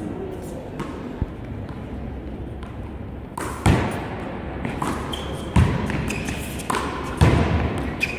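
A wallball rally: a rubber handball is slapped by hand against the wall and bounces off the court, giving four sharp smacks about one to one and a half seconds apart from about three and a half seconds in. Sneakers squeak briefly on the indoor court surface.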